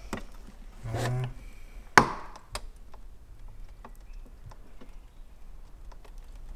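Plastic headlight lens being worked off its glued housing: small clicks and creaks of plastic, with one sharp crack about two seconds in as it gives.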